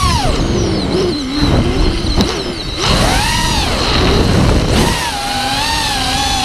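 Brushless motors of a 5-inch FPV racing quadcopter (Scorpion 2205 2350kv with HQ 5x4x3 three-blade props) whining with the throttle: the pitch drops steeply at the start, swoops up and down through the middle, then climbs and holds steady near the end. Rough wind noise on the onboard microphone runs underneath.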